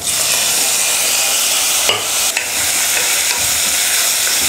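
Sliced tomatoes hitting hot oil and sautéed shallots in a pressure cooker, setting off a sudden loud, steady sizzle of frying. The mix is stirred with a wooden spatula, which knocks against the pan a couple of times about two seconds in.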